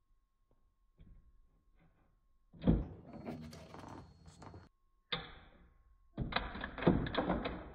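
Plastic action figure and small plastic table slammed onto a toy wrestling ring's springy mat. A sharp knock about two and a half seconds in is followed by rattling, there is another knock near five seconds, and then a longer clatter of plastic hits.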